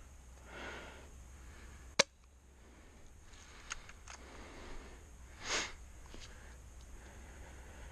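Quiet background with one sharp click about two seconds in, a couple of faint ticks, and a short rustle about five and a half seconds in.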